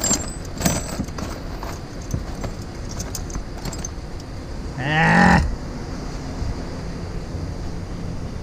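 Light clinks of hand tools being rummaged through near the start, then about five seconds in a single short, pitched groan, rising and wavering, lasting under a second.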